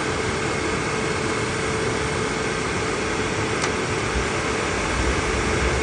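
Suburban SF-42Q RV furnace blower fan running steadily on a call for heat, a constant hum with faint steady tones. One faint click about three and a half seconds in.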